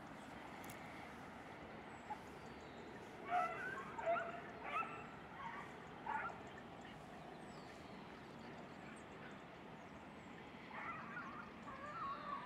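Beagles baying on a hare's trail: a run of about five short bays starting about three seconds in, then a longer spell of baying near the end.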